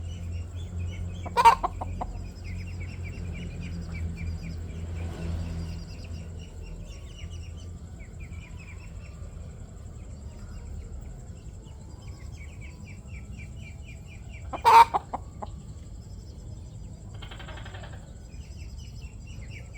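A hen clucks twice, two loud short calls about thirteen seconds apart, over steady high chirping trills.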